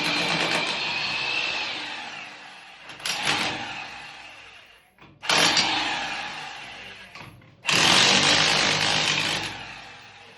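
A power tool run in repeated bursts: it starts suddenly three times, about 3, 5 and 8 seconds in, and each run trails away over a second or two before the next.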